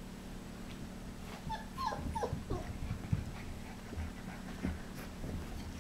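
Husky puppy whimpering: a quick run of short whines, each falling in pitch, about two seconds in.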